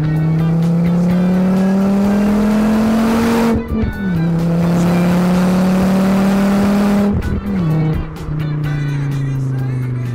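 A car engine accelerating hard through the gears. Its pitch climbs steadily, drops at a gear change about three and a half seconds in, climbs again and drops at another shift about seven seconds in. Music with a beat plays underneath.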